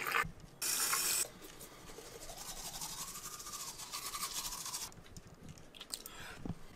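Manual toothbrush scrubbing teeth in rapid back-and-forth strokes for a few seconds, after a short burst of tap water running over the brush near the start.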